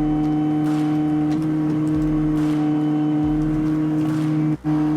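Tractor engine running at a steady speed, driving a rotating screw-cone log splitter, with a steady pitched drone throughout. The sound drops out for a moment just before the end.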